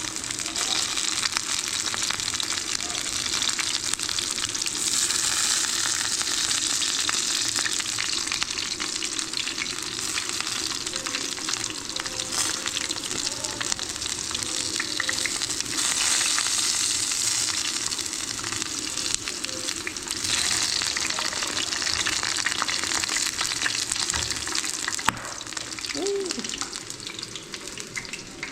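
Food frying in hot oil: a steady crackling sizzle that eases a little near the end.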